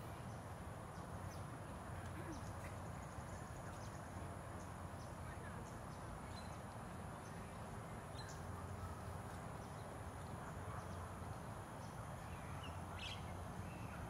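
Outdoor garden ambience: a steady low background hum, with short bird chirps and calls scattered through it and a faint steady high tone.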